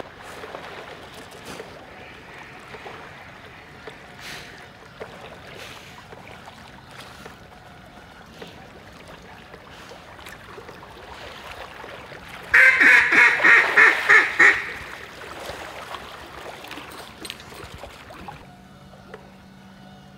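A duck call blown in a quick, loud string of about eight quacks over two seconds, about twelve seconds in. Faint sloshing and trickling of flooded-timber water runs underneath.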